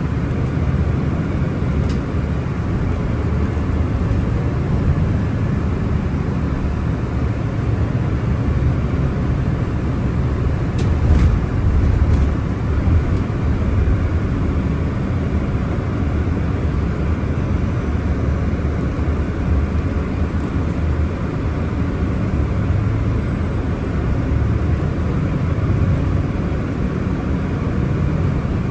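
Steady low rumble of engine and road noise heard from inside a moving coach, with a few faint ticks about two and eleven seconds in.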